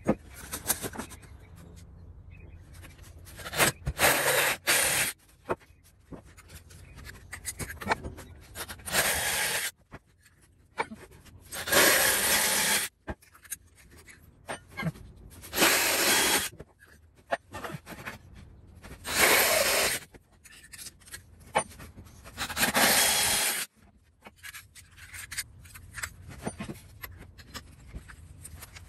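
A cordless drill driving a 1 3/4 inch hole saw through a pine board, in a series of short cuts about a second each with pauses of a few seconds between, the saw teeth rasping through the wood.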